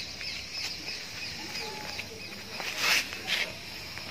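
Small birds chirping outdoors, a quick run of short falling chirps that fades out about a second and a half in. Near the end come two short rustling noises.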